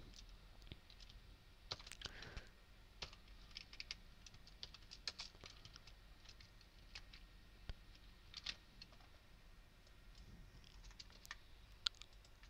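Faint, irregular keystrokes on a computer keyboard: scattered single taps and short runs of typing.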